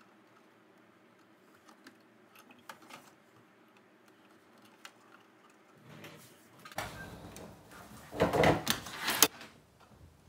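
Handling noise: a few faint clicks, then louder rustling and knocking about seven seconds in, loudest around eight to nine seconds, as the denim vest and patch are moved about at the sewing machine. The machine is not running.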